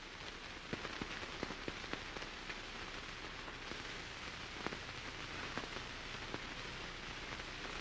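Steady hiss with scattered faint crackles and clicks: surface noise of a worn early-1930s optical film soundtrack, with no speech.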